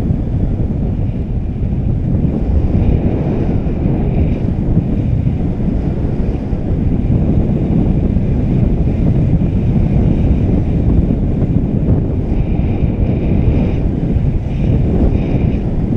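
Airflow rushing over a GoPro's microphone in paraglider flight: steady, loud wind noise.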